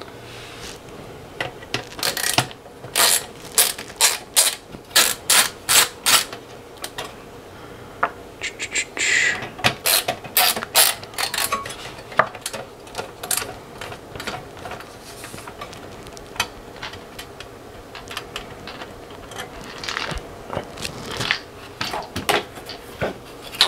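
Hand screwdriver with a T10 Torx bit backing small screws out of the radio's sheet-metal CD-player frame. A run of sharp clicks comes about two a second from roughly two to seven seconds in, then scattered clicks and light metal taps.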